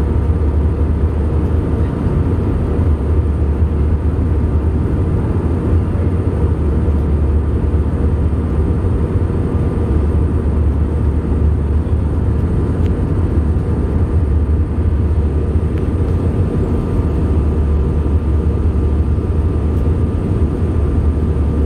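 Jet airliner in flight, heard inside the cabin: a steady low roar of engines and airflow, with a faint steady whine above it.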